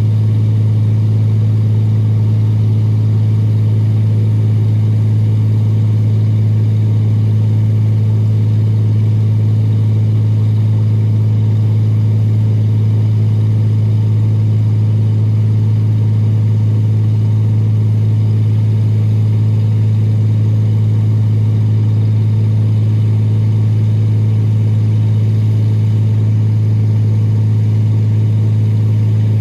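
Excavator engine running at a steady speed, a constant low drone with no change in pitch or load.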